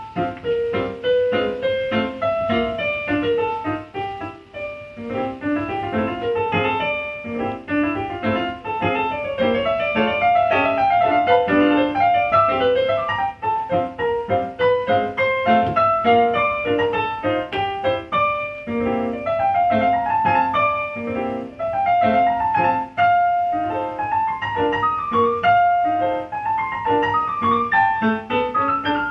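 Electronic keyboard played solo with a piano sound: a lively melody over chords, in quick, continuous notes.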